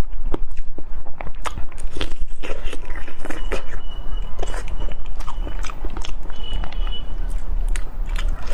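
Close-miked chewing and biting of food, a dense run of quick mouth clicks with some crunch.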